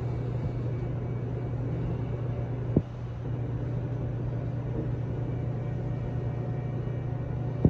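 Steady rumble and low hum inside a Keisei commuter train car, with a single sharp knock about three seconds in.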